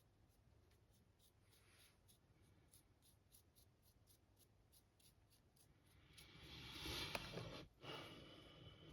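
Quiet, scratchy rubbing close to the microphone, faint at first, swelling from about six seconds in into a louder rubbing hiss that breaks off for a moment and then carries on.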